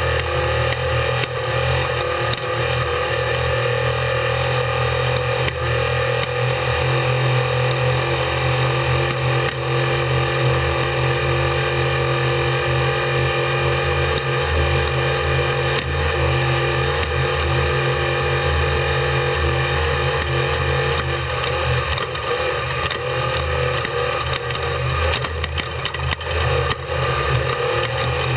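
Unlimited-class desert race truck's engine running hard at a fairly steady pitch, heard on board, with scattered knocks and rattles over rough ground.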